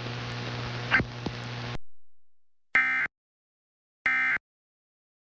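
Emergency Alert System end-of-message data tones: three short, identical bursts of the SAME digital warble, about 1.3 s apart, marking the end of the alert. Before them a low hum and hiss with a sharp click about a second in, cut off abruptly to silence.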